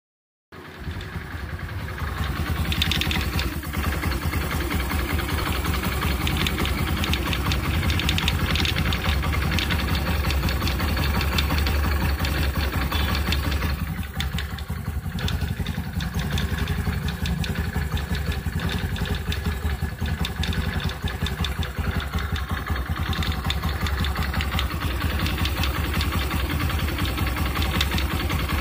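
Honda Activa 125 scooter's single-cylinder engine idling steadily, with a mechanical noise that the owner puts down to a bearing issue.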